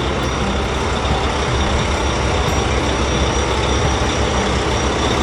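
Heavy truck engine sound effect running steadily with a deep rumble, as for a truck driving off.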